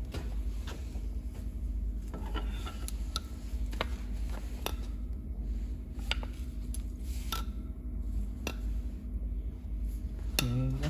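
Irregular metallic clinks and knocks of hand tools against steel diesel-engine parts during a teardown, about a dozen separate sharp strikes, some ringing briefly, over a steady low hum.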